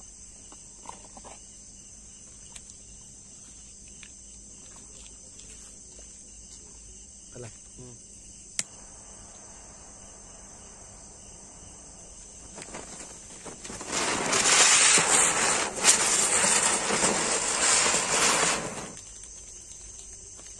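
Ground chakkar (ground spinner) fireworks hissing loudly as they spin, starting about two-thirds of the way in and lasting about five seconds. Before that, a jet-flame torch lighter clicks on and hisses while lighting them. Crickets chirp steadily in the background.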